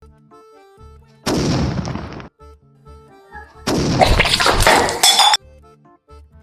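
Two loud firecracker blasts over background music: the first just over a second in, lasting about a second, the second starting near four seconds and running longer, each cutting off suddenly.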